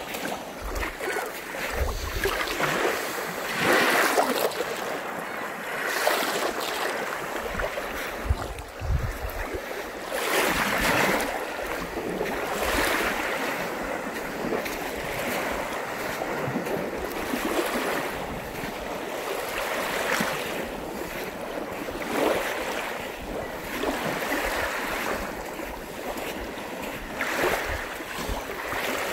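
Small lake waves washing onto a sandy beach, surging and falling back every few seconds, with wind rumbling on the microphone.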